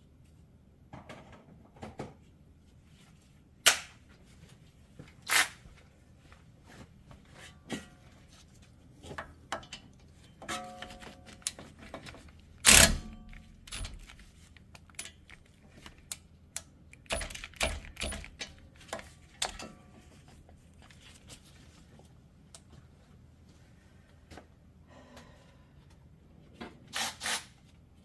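Metal hand tools clinking and knocking against metal parts: a scattering of sharp clicks and clanks, some ringing briefly, the loudest about thirteen seconds in.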